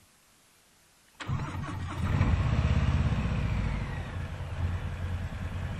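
Harley-Davidson Sport Glide's Milwaukee-Eight 107 V-twin engine starting about a second in: a brief crank, then it catches, runs up louder for a couple of seconds and settles to a steady idle.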